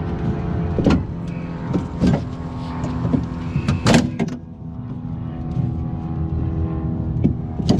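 Hand tools clicking and knocking on the metal of a car door during window-regulator removal, over a steady engine-like hum.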